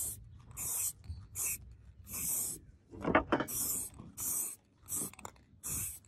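Aerosol spray can of clear lacquer hissing in a quick series of short bursts, about one every half to three-quarters of a second, as the coat goes onto the sword handle. A brief louder knock comes about three seconds in.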